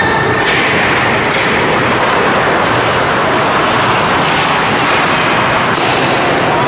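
Ice hockey play in a rink: a steady loud rush of noise with about five short, sharp scrapes or clacks from skates and sticks on the ice.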